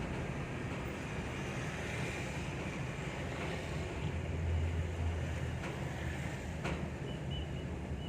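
A vehicle driving, giving a steady run of engine and road noise, with a faint sharp tick or knock about two-thirds of the way in.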